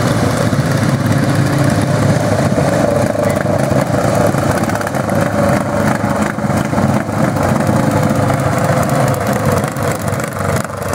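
Engines of several racing lawn tractors running together as the pack drives by, a loud, steady, wavering engine noise.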